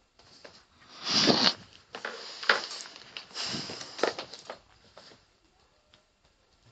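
Rustling and scraping with a few sharp clicks, in three spells over about four seconds, then faint ticks: a cat batting and pawing at a pencil on a hard surface.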